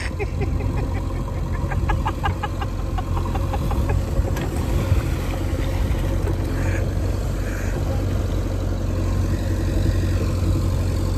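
JCB 3DX backhoe loader's diesel engine running steadily while its bucket digs and lifts wet mud.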